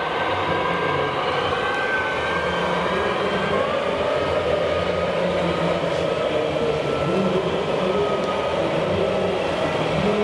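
Large 1:8 scale RC model tractor, a John Deere 8530, driving while it pulls a loaded dump trailer. It makes a steady mechanical hum and whine, with a few tones that drift slightly in pitch as it moves, over a constant background din.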